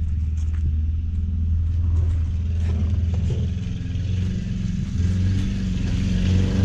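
2003 Ford Focus four-cylinder engine running steadily, loud through its gutted catalytic converter, with a slight miss that the owner expects a new coil pack to fix.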